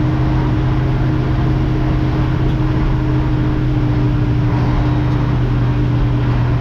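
A 48-year-old Mack truck's diesel engine running at a steady speed, a constant low drone that holds unchanged throughout.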